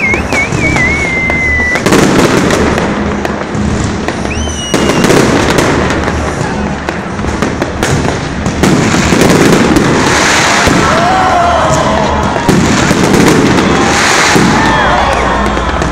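Aerial fireworks going off in quick succession: sharp bangs of shells bursting over a dense crackle, with a few high tones sliding in pitch now and then.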